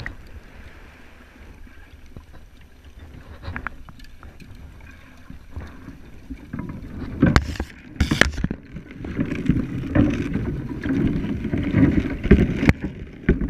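Water sloshing and churning, heard muffled through a camera held underwater, with a few sharp knocks about halfway. It grows louder and busier in the second half.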